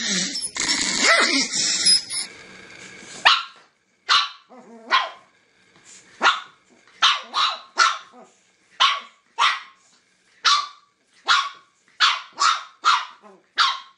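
Pug puppy barking: about fifteen short, high yaps, one or two a second. Before them, for about the first two seconds, a loud, harsh, continuous sound from the chihuahua's clip.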